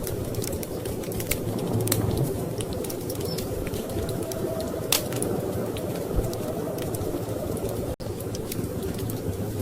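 Wood fire crackling, with scattered sharp pops and ticks, one louder pop about five seconds in, over a steady low rumble of storm wind.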